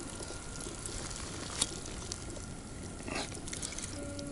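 Soft crackling and rustling with a few light clicks as a rubber-coated landing net holding a pike is handled.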